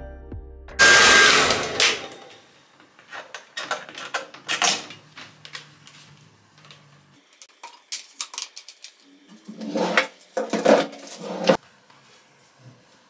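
A hair dryer and its cord being handled and put away: a short, loud rush of noise about a second in, then scattered clicks and rustles as the cord is wound, and a cluster of dull knocks and clatter near the end.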